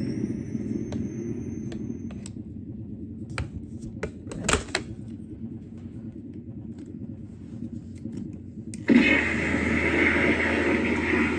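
Proton pack replica's electronic sound effects from its speaker, in 1984 mode: the power-up whine levels off into a steady high tone over a low idle hum, and stops with a click about two seconds in. A few switch clicks follow, then about nine seconds in a loud, steady proton-stream firing sound starts suddenly from the wand.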